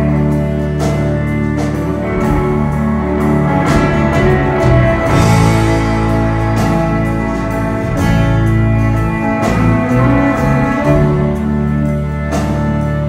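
Live band playing an instrumental passage without vocals: guitars over sustained notes, with drum and cymbal hits throughout.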